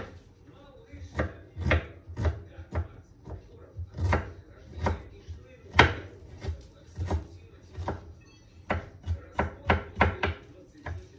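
Kitchen knife chopping garlic and ginger on a wooden cutting board: sharp strikes at an uneven pace, one to three a second, coming quicker toward the end.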